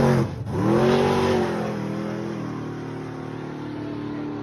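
Drag car engine at full throttle pulling away down the strip, its pitch climbing. A brief dip in pitch and level comes about half a second in, then it climbs again and fades as the car recedes.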